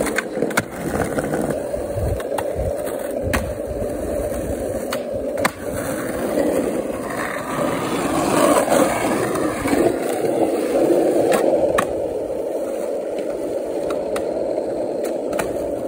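Skateboard wheels rolling over pavement with a steady rumble, broken about a dozen times by sharp clacks of the board popping and landing.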